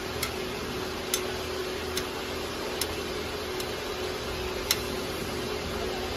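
Light metallic ticks of a steel hex key clicking against a screw as it is turned in short strokes, six clicks about a second apart, the fifth the loudest. A steady machine-room hum runs underneath.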